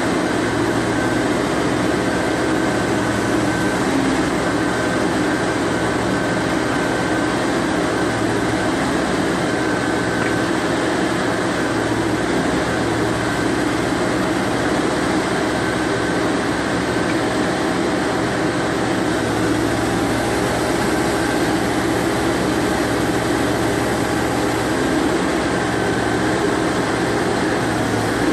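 Colmar T2400 road-rail excavator's diesel engine running steadily while its hydraulics move the boom and attachment. A faint whine comes and goes over the engine.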